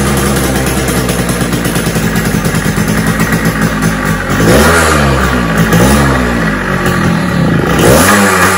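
Suzuki Shaolin's single-cylinder two-stroke engine running unevenly at low revs on the choke, then blipped on the throttle about halfway through, the revs rising and falling several times. It will not idle on its own, which the owner puts down to a completely blocked carburettor pilot circuit.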